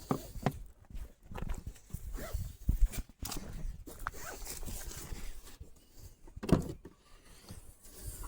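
Irregular rustling and knocking of belongings being handled and moved, with a short squeal about six and a half seconds in.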